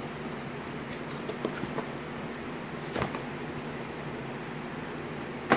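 Hands opening a cardboard retail box and sliding out its inner sleeve: faint rustling and small taps of cardboard, with one sharp tap near the end.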